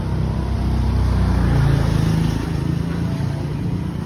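A motor vehicle's engine passing close by on the street, growing louder to about halfway and then fading.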